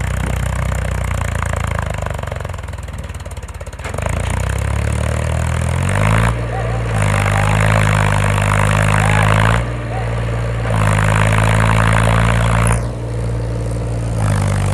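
Eicher diesel tractor engine running at low revs, then climbing about five seconds in and held at high revs twice for about three seconds each. The revs drop briefly between the two pushes and fall away near the end. The tractor is hitched to two trailers piled high with sugarcane, so it is working against that heavy load.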